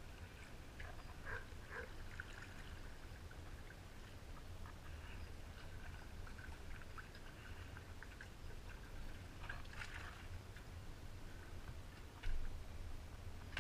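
Kayak paddle strokes: water dripping and splashing off the paddle blades and lapping at the hull, in scattered small splashes over a low steady rumble, with one sudden louder thump near the end.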